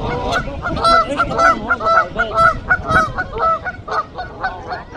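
Canada geese honking in a rapid run of loud calls, several a second, tailing off near the end: defensive alarm honking at a rhino that has come too close to their nest.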